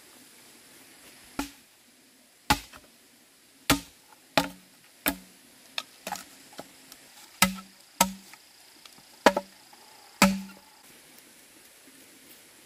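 Machete blade chopping into a bamboo stem on the ground. About a dozen irregular strikes come roughly a second apart, each with a short low ring.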